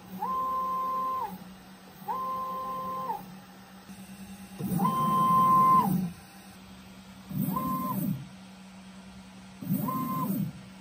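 Stepper motors of an Ooznest WorkBee CNC router turning its lead screws in five short jog moves. Each move is a whine that ramps up in pitch, holds, then ramps back down as the axis speeds up and slows. The middle move is the loudest, and the last two are shorter with more low rumble.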